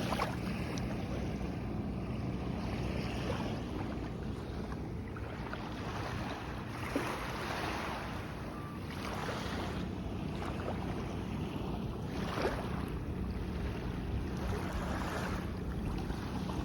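Small waves washing onto a sandy beach, surging every few seconds, with some wind on the microphone.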